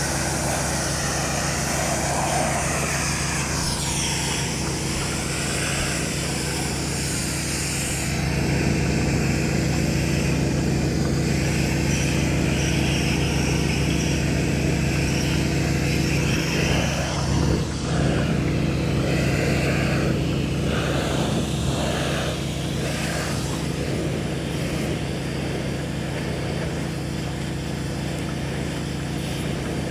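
Pressure washer running steadily: an engine drone under the hiss of the water spray. About eight seconds in the low drone gets louder and the highest part of the hiss drops away.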